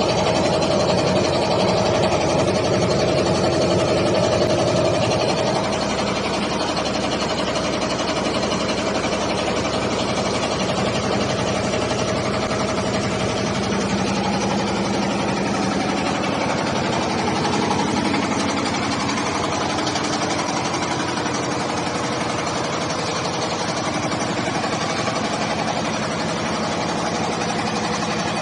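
Hot air roaster for cereal and corn flakes running: a steady machine hum of fans and motors, with several steady tones over a bed of rushing noise. It drops slightly in level about five seconds in.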